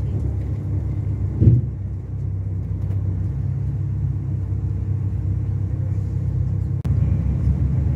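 Mercedes-Benz O-500RSD 2441 bus's diesel engine running with a steady low rumble. A short loud thump comes about a second and a half in.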